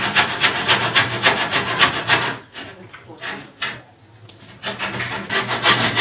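Hand saw cutting a wooden ceiling-frame batten, with quick, even rasping strokes, about six a second. The sawing stops for about two seconds in the middle, then starts again.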